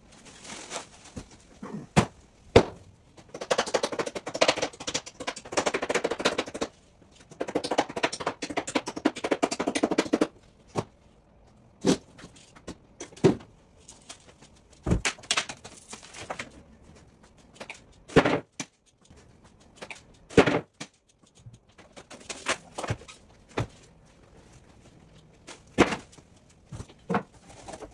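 Plywood shipping crate being pried apart with a hand tool, its stapled and screwed side panels worked loose: scattered sharp knocks and thuds, with two longer stretches of rasping noise in the first ten seconds.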